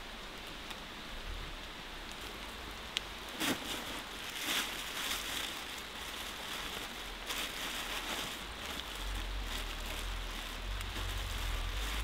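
Thin plastic bag crinkling and rustling as food is unwrapped from it, in crackly spurts from about three and a half seconds in, with a low rumble near the end.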